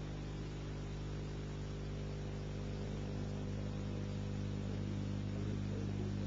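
Steady electrical hum with a stack of overtones under a bed of hiss, growing slightly louder over the few seconds: mains hum and hiss on an old analogue soundtrack.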